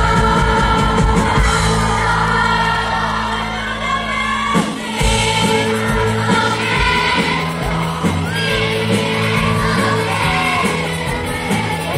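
Children's choir singing a Christmas carol with band accompaniment, amplified over a PA system.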